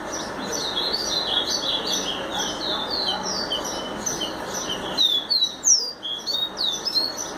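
A caboclinho (seedeater) singing inside a blender jar: a fast, continuous run of high, down-slurred whistled notes, loudest about five seconds in.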